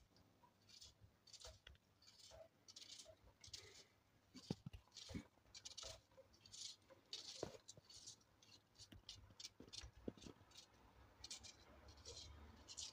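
Faint, crisp strokes of a small knife dicing an onion held in the hand, about one or two cuts a second, with a few light clicks.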